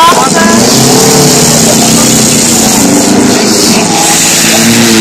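Engines of several banger-race cars running and revving close by, their pitch rising and falling over a steady loud rushing noise.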